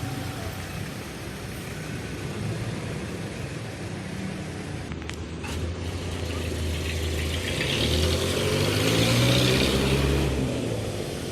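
Street traffic with a motor vehicle's engine running. About two-thirds of the way through it accelerates, its pitch rising as it grows louder, then eases off near the end.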